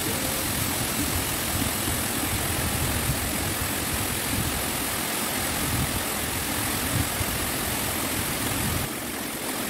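Steady rushing noise of flowing stream water, with a low rumble that drops away near the end.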